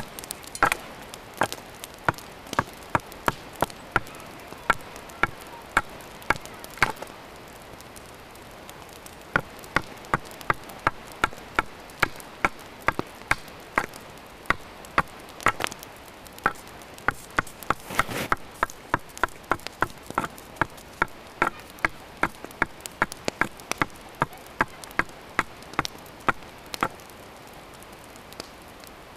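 Small hatchet chopping and shaving down a wooden bow stave held upright: a long run of sharp chops, about two to three a second, with a pause of about two seconds a quarter of the way in. The hatchet is roughing out the bow's limbs.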